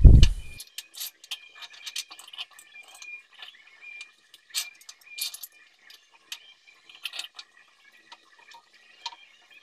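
Kitchen containers, cups and small kettles clinking and tapping as they are set down and shifted on a shelf: a scattered run of light clicks, after a dull thump at the very start.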